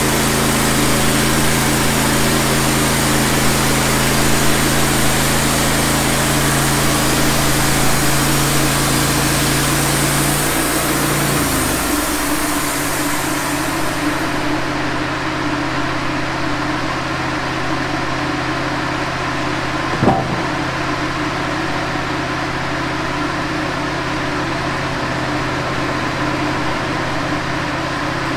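Wood-Mizer LT15 band sawmill running, its blade cutting through a pine log with a steady engine note and a hiss of sawing. About twelve seconds in the engine note changes and the hiss fades as the cut ends, and the engine runs on steadily. There is a single knock about twenty seconds in.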